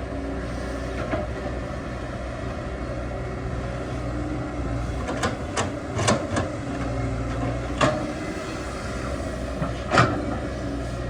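Excavator engine running steadily while it works, with a cluster of sharp knocks in the middle and one louder knock near the end.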